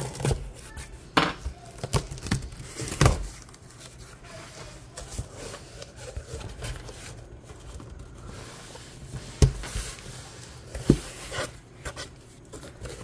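Packing tape being slit along the seam of a corrugated cardboard shipping box and the flaps pulled open: scraping, tape tearing and cardboard rustling, broken by a few sharp knocks.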